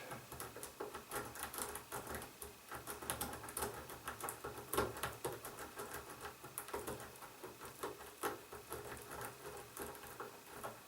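A lock pick raked rapidly back and forth in the keyway of a small Yale padlock, a fast, irregular run of metallic clicks and scratches as the pick scrubs over the pin stack. The lock does not open.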